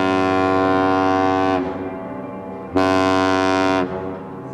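A Great Lakes freighter's horn blowing: a long blast that cuts off about one and a half seconds in, then after a short gap a second, shorter blast lasting about a second.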